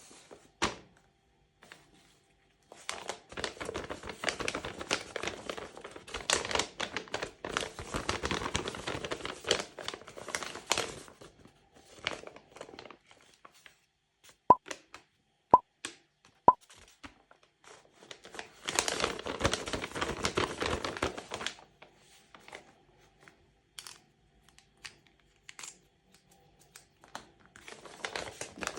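Crinkly packaging being handled and torn open, in two long rustling, tearing stretches with a shorter one near the end, and three short clicks in between.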